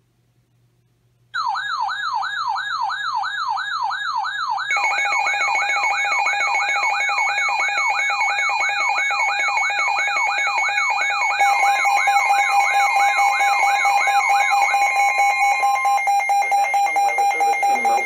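Several NOAA weather radios sounding their alert alarms together for a tornado warning. A fast warbling siren starts about a second in. A steady tone joins at about five seconds, and another steady warning tone comes in near twelve seconds. The warble stops about fifteen seconds in.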